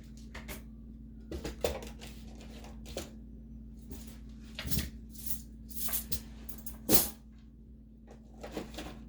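Kitchen utensils clicking and knocking as they are handled and set into a kitchen drawer: a series of separate knocks, the loudest about seven seconds in.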